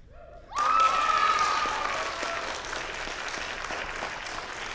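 Audience bursts into applause and cheering about half a second in, with a whoop near the start, loudest at first and then settling into steady clapping.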